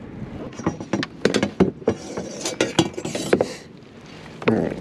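A quick run of sharp knocks, clicks and rattles from a freshly caught sheepshead and the angler's gear being handled aboard a plastic kayak, with one more knock near the end.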